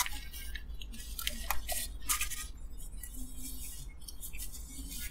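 Paper sandwich wrapper crinkling and rustling in the hand, in short scattered crackles, while a flatbread is bitten and chewed, over a low steady rumble.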